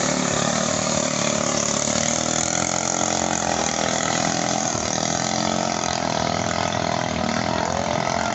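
Small petrol engines of ketinting longtail racing boats running with a steady, continuous drone.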